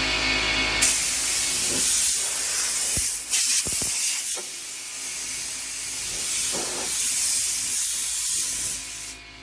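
Spray paint hissing from a nozzle in long passes. It starts suddenly about a second in, breaks briefly a few times around the middle, and cuts off sharply near the end.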